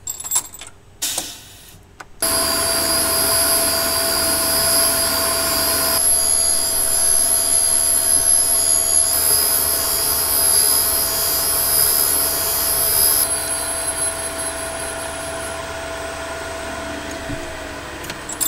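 Crankshaft grinder set up to reface engine valves, running with its stone grinding the face of a stainless intake valve. It comes on abruptly about two seconds in, after a few light clicks, as a steady machine whine with several held tones, and eases off somewhat over the last few seconds.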